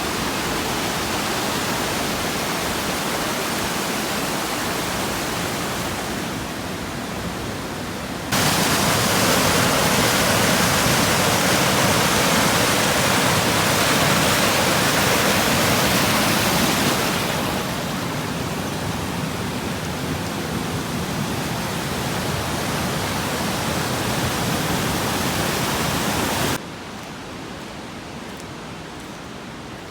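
Steady rush of falling water from a waterfall or fast stream. It jumps louder abruptly about a third of the way in, eases back after the middle, and drops suddenly near the end.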